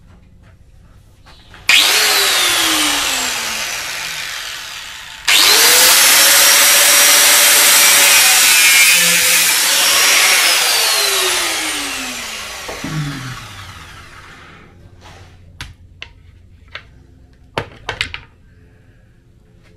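Corded angle grinder with a cutting disc, cutting through thick 8 AWG battery cable. It starts with a short burst and winds down with a falling whine, then starts again about five seconds in and runs steadily at full speed for about five seconds before spinning down, its whine falling away. Small clicks and knocks near the end as the cable is handled.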